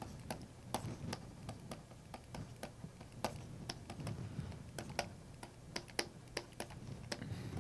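Stylus pen tapping and scraping on a tablet surface during handwriting: a faint, irregular run of small clicks, about two to four a second.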